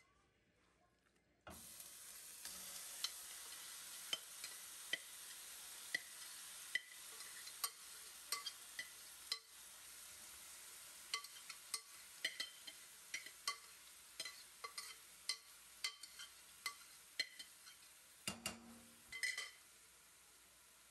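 Chunks of raw meat searing in hot oil in a granite-coated frying pan: a sizzling hiss starts suddenly about a second and a half in, with frequent pops and crackles as the pieces are turned with tongs, and the sizzle dies down near the end.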